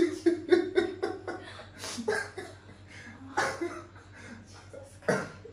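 A man and a woman laughing. Quick breathy chuckles come first, then a few separate breathy bursts of laughter about a second and a half apart.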